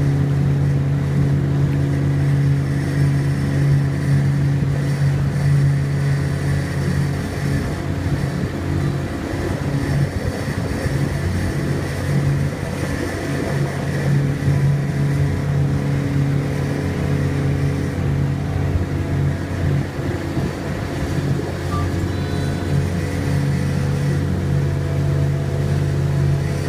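Boat's Mercury outboard motor running steadily at cruising speed, a constant low drone heard from on board.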